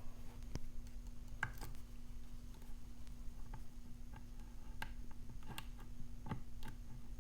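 Light, irregular clicks and ticks of lock-picking tools, a pick and a flat-bar tension wrench, working in the keyway of a Brady Safekey padlock: metal tapping against the pins, over a faint steady hum.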